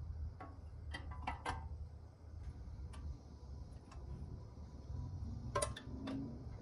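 A few scattered light clicks and taps: a small cluster about a second in, faint single ticks in the middle, and the loudest pair near the end, over a low steady hum.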